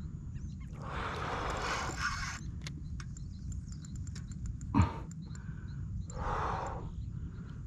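A hooked tambaqui thrashing and splashing at the water's surface in two bursts, over a steady low rumble of wind on the microphone. A single sharp knock comes about five seconds in and is the loudest sound.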